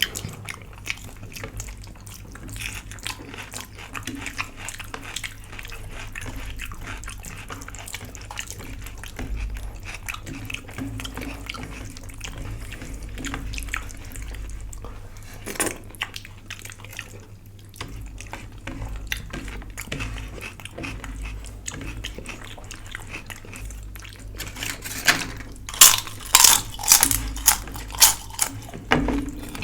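Close-up eating sounds: wet chewing and mouth noises with small clicks. Near the end comes a quick run of louder sharp clicks.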